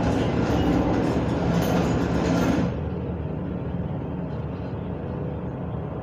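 Film soundtrack of a WWII bomber's piston engines droning steadily, played back through a home-theater speaker system with a subwoofer. A little under halfway through, the rushing noise over the drone drops away, leaving the lower engine drone.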